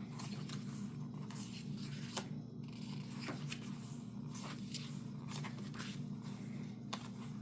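Faint paper rustles and soft taps of album photobook pages being handled, a few brief strokes spread over several seconds, over a steady low hum.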